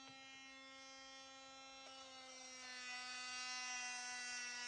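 Einhell 18-volt cordless oscillating multi-tool running with a steady high buzz. From about halfway through, the blade cuts into the wood and the sound grows louder and rasping.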